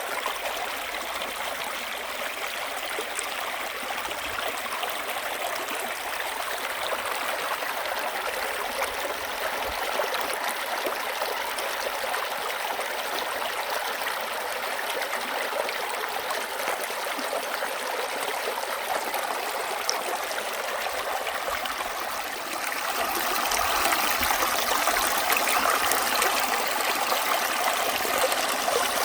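Mountain valley stream flowing, a steady rush and trickle of water, growing a little louder about two-thirds of the way through.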